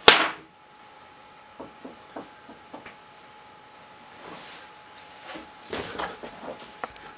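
A sudden loud swish at the start, then faint scattered clicks and rustles of something being handled, over a faint steady hum.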